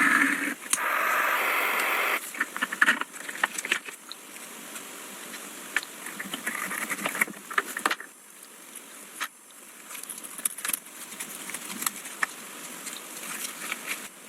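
Hand work on an old telescope's metal parts: scattered clicks, taps and scraping, with a dense rush of rubbing or scrubbing noise for the first two seconds or so.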